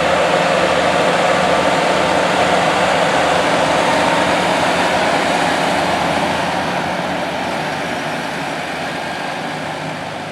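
Heavy diesel engine of a big farm machine running steadily, growing gradually fainter over the last few seconds.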